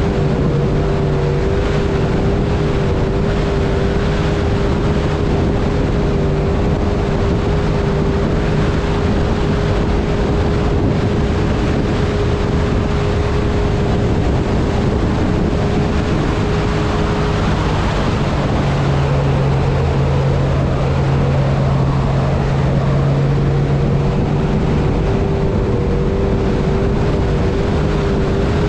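Mercury XR2 two-stroke outboard motor running steadily as the boat is under way, its engine note shifting about two-thirds of the way through before settling again, with rushing water and wind on the microphone.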